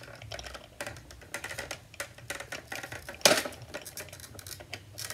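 Clear acrylic holder strips of a rotating sunglasses display clicking and clattering as they are fitted into its top disc, with one sharper knock about three seconds in.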